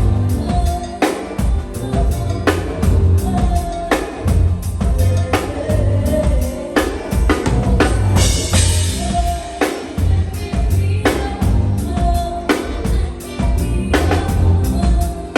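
Live go-go band playing amplified music: a drum kit and percussion keep a steady beat under heavy bass, with held instrument or vocal notes above, and a bright cymbal wash about eight seconds in.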